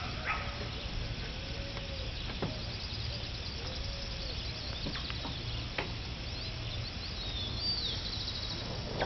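Birds calling at a riverside: high chirps and a short rising-and-falling call repeated about once a second, over a steady low rumble, with a few faint clicks.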